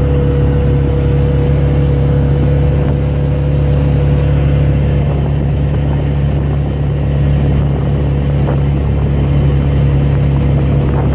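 Engine and road noise of a moving vehicle heard from on board: a steady low drone with a faint hum above it.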